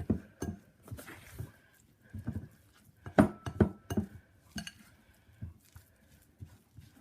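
A fork stirring and mashing a thick sardine-and-flour dough in a bowl, with irregular clinks and knocks of the fork against the bowl, loudest about three seconds in.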